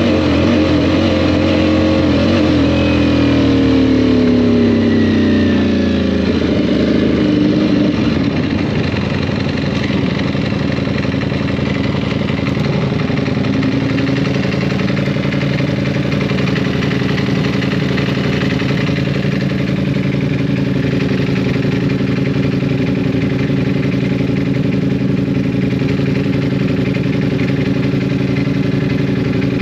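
Motorcycle engine slowing, its pitch falling steadily over the first seven seconds or so, then running at a steady low speed.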